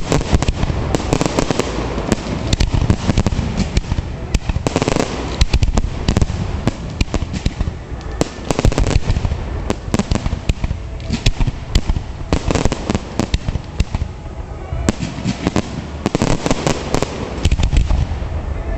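Fireworks display: a continuous, dense barrage of bursting shells and rapid crackling, with heavier clusters of bangs at several points.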